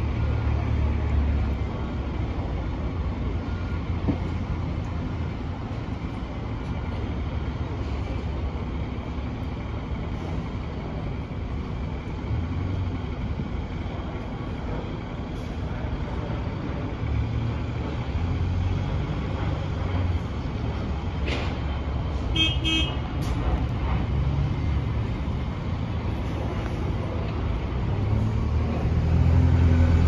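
Bus engines and road traffic rumbling steadily at a bus station, with a brief high-pitched tone about two-thirds of the way through. Near the end a single-decker bus pulls close, and its engine grows louder.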